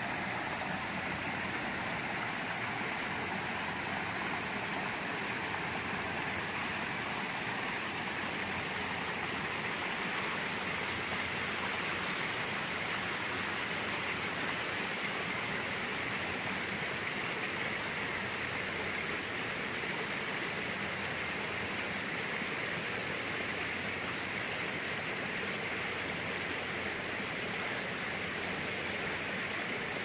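Small mountain stream rushing and splashing over rocks in a steady, unbroken flow.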